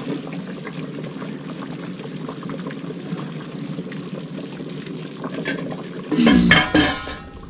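Pot of chicken curry bubbling steadily as it simmers, with small crackling pops throughout. About six seconds in there is a louder burst of clattering and handling noise.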